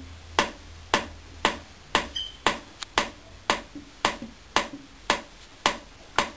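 A steady ticking: sharp clicks about twice a second, each trailing off briefly.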